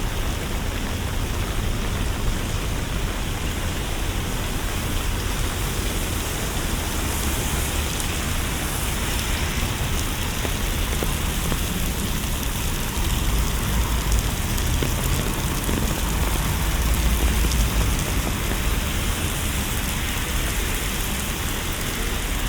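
Steady rain falling, with a low rumble underneath that swells for a few seconds past the middle.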